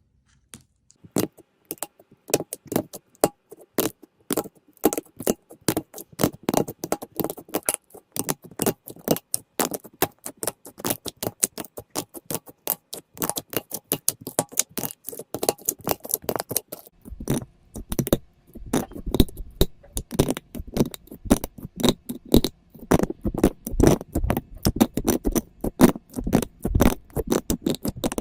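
Slime being squeezed and poked by hand, making a rapid, irregular run of sticky clicks and pops. About halfway through, the squishing gets fuller and deeper.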